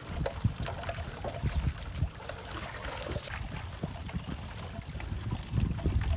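Seawater lapping and splashing against the hull of a small outrigger fishing boat, with a low uneven rumble of wind on the microphone.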